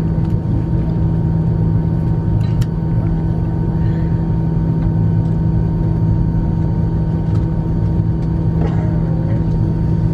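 Steady drone inside the cabin of a Lufthansa Airbus A340-300 taxiing slowly at idle power, with a constant low hum and a few faint clicks.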